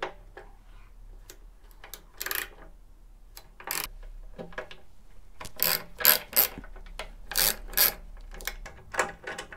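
A steel Allen key undoing small 3 mm Allen bolts: irregular metallic clicks, taps and scrapes, coming thickest about halfway through and again near the end.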